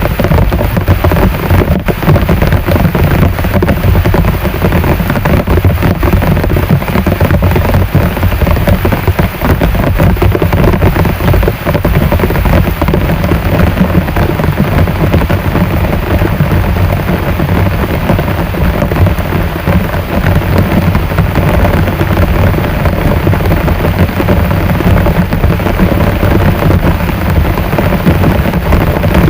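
Heavy rain falling steadily: a loud, dense, even downpour without break.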